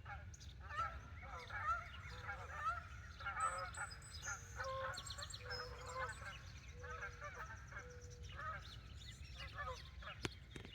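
A flock of geese honking, many calls overlapping one another without a break, over a low steady rumble. A single sharp click comes near the end.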